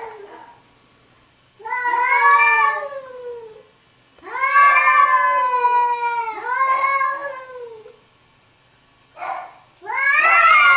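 Domestic cat meowing: four long, drawn-out meows of about one to two seconds each, separated by short pauses, and a brief chirp-like call shortly before the last one.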